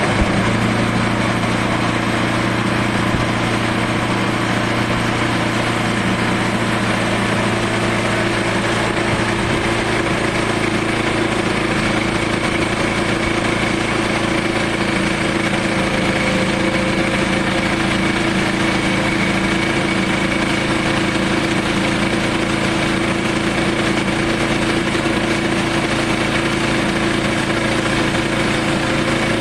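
Portable sawmill running steadily at a constant pitch while it saws a slab off a southern rata log, with a slight change in tone about ten seconds in.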